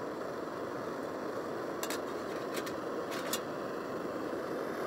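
MSR Dragonfly white-gas stove burning at full output under a pot, a loud, steady rush that sounds like a jet engine. A few light metallic clicks from the pot lid come about two and three seconds in.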